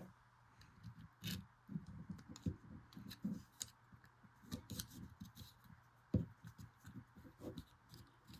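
Irregular small clicks, taps and scrapes of a Milwaukee Fastback folding utility knife being handled as a spare razor blade is fitted into its retention clip, with one sharper knock about six seconds in.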